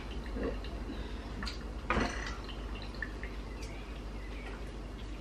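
Thick puff-puff batter worked with a wooden spoon in a bowl: wet slaps and drips as the batter is stirred and lifted, with a sharper knock about two seconds in.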